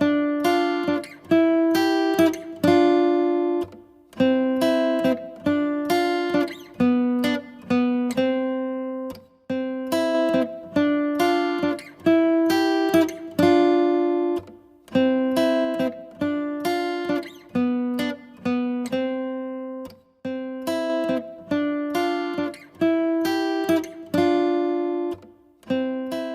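Acoustic guitar music: chords plucked about twice a second, each ringing and fading, in a repeating pattern.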